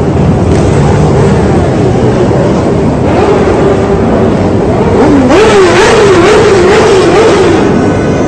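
Motorcycle engines running and revving as a pack of motorcycles rides past, with an engine note rising and falling repeatedly from about five seconds in.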